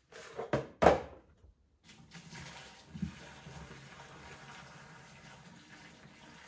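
A few sharp knocks in the first second, then boiling water poured from a stainless steel saucepan straight into a kitchen sink drain, running steadily for about five seconds. The hot water is flushing washing soda down a drain to try to clear it.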